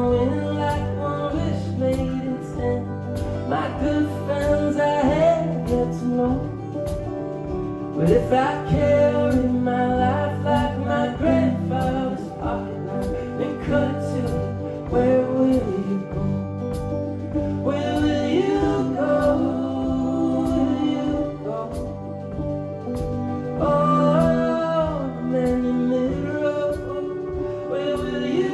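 Live indie folk band playing a song, with a man singing lead over sustained instrumental chords and a steady beat.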